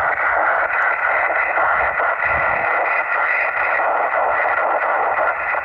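Steady hiss of a ham radio transceiver receiving on upper sideband at 144.148 MHz, with band-limited static and no voice heard.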